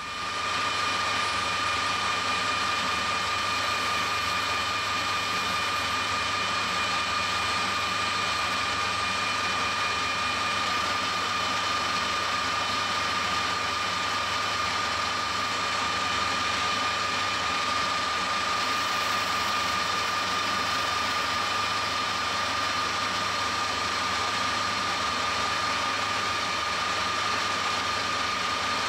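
Metal lathe running with a steady high whine while its tool, swept by hand on a radius-turning attachment, cuts a convex face on an aluminium knob.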